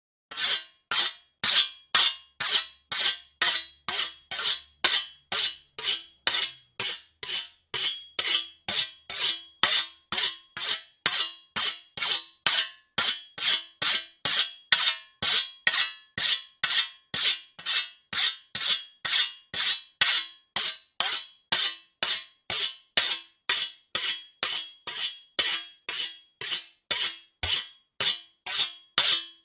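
Knife blade drawn again and again across a sharpener, an even run of rasping strokes at about two a second, each swelling and then cutting off sharply.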